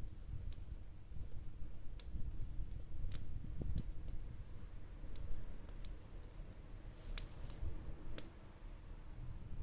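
Wood fire crackling in a small metal fire pit: irregular sharp pops and snaps over a low steady rumble.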